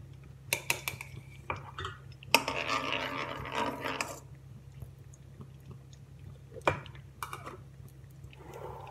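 A steel spoon clinking and scraping in a non-stick kadai while stirring melting desi ghee, with a dense stretch of scraping a little over two seconds in and a few sharp taps on the pan. A steady low hum runs underneath.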